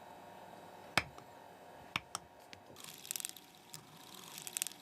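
Engraving tool cutting grooves into a platinum watch case for diamond setting: a few sharp clicks about a second apart, then quick runs of fine scratchy ticks as the tool scrapes the metal in the second half.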